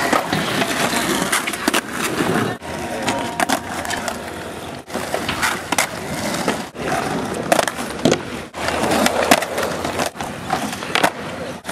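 Skateboard wheels rolling over rough asphalt, a continuous gritty rumble broken by several sharp clacks of boards hitting the ground.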